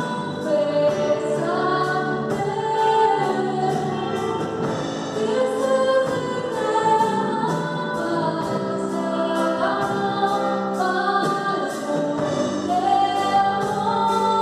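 Christian worship song: several voices singing a slow melody over instrumental backing with a steady beat.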